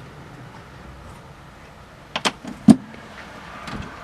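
Pliers and other hand tools clinking in a tool drawer as they are picked up and set down: three sharp clinks starting about two seconds in, the last the loudest.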